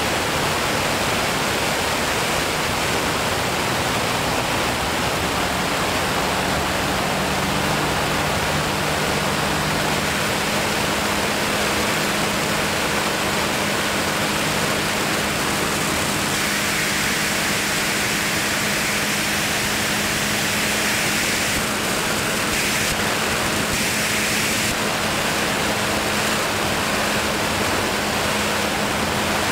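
Steady rush of wind over the microphone in flight, with a faint low hum underneath.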